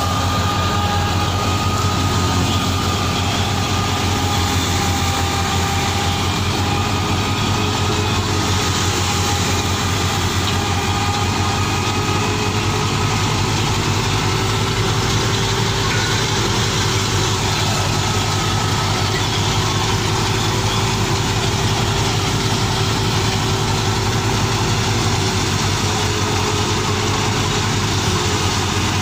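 Fiat 480 tractor's three-cylinder diesel engine running steadily at an even speed, with a rapid regular beat.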